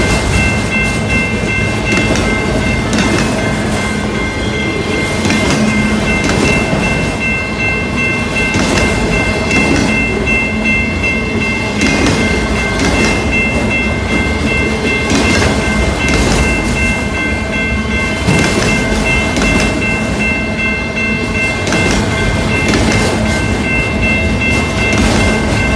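Freight cars rolling past close by, their wheels clattering steadily over the rail joints. A grade-crossing bell rings steadily over the noise.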